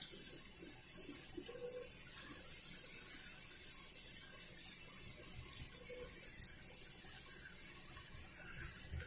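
Besan-battered onion bhajiya deep-frying in hot oil: a steady sizzle with a few faint crackles.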